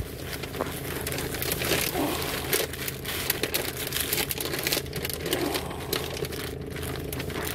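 Paper deli sandwich wrapper crinkling and rustling in a run of small, irregular crackles as fingers fold and peel it around a sub roll.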